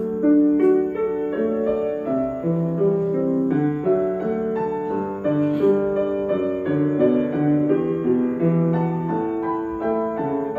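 Grand piano played live, a melody of single notes over chords.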